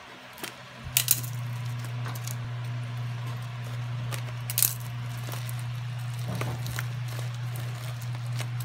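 Scissors snipping and clicking as they cut through a plastic-wrapped parcel, a few sharp clicks with the plastic crackling between them. Under it a steady low hum starts about a second in.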